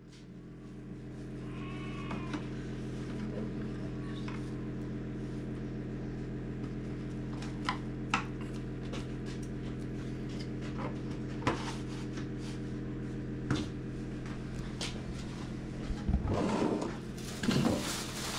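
A steady low hum runs underneath, with a faint livestock bleat about two seconds in and a few light clicks later. Near the end, hands working flour and oil in a large aluminium basin make a louder rustling, scraping sound.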